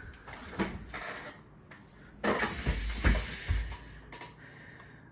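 Clicks and clatter of hardware being handled: a few sharp clicks, then a louder stretch of rattling and knocking in the middle, then a couple more clicks.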